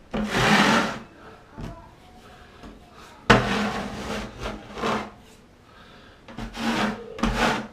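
Drywall knife scraping joint compound across the ceiling in three drawn-out strokes: a short one at the start, a longer one from about three seconds in, and another near the end.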